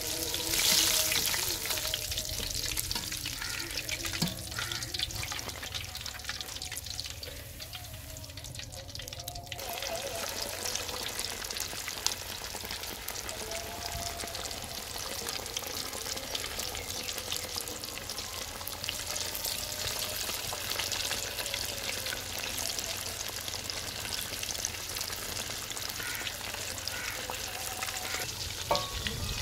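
Besan-battered fish pieces deep frying in hot oil, a dense steady crackle and sizzle. It is louder for a moment about a second in, as more fish is lowered into the oil with a wire skimmer.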